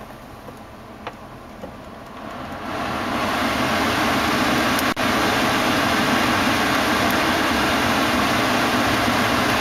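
Climate-control blower fan ramping up about two seconds in, then a steady loud rush of air from the dash vents. The 5.4-litre V8 idles underneath, and a few button clicks come at the start.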